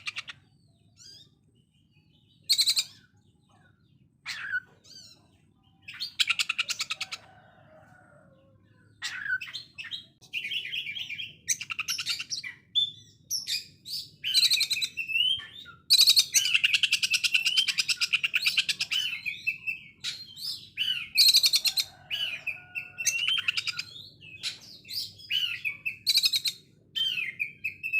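Oriental magpie-robin (kacer) singing a harsh, rough song of rapid machine-gun rattles, the 'konslet' style likened to a sewing machine. Short phrases come with gaps at first, then the song runs almost without pause, with a long rapid rattle a little past halfway.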